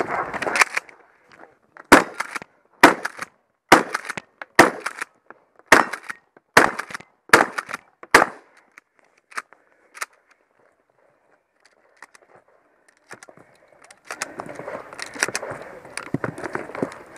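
Mossberg 590 pump-action shotgun fired eight times, about a shot a second, each loud bang followed by lighter clacks as the pump is worked between shots.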